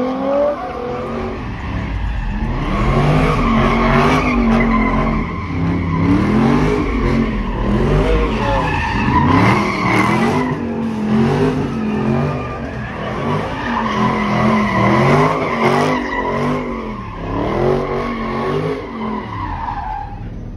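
A car doing donuts: tires squealing while the engine revs up and down over and over, about every second or two.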